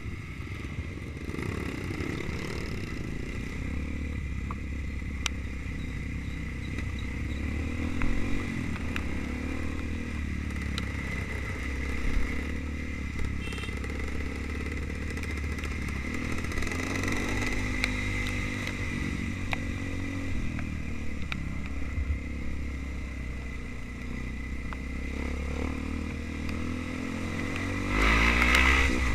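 Trail motorcycle engine running as it is ridden, its pitch rising and falling with the throttle, amid clattering and rattling. It revs up louder near the end.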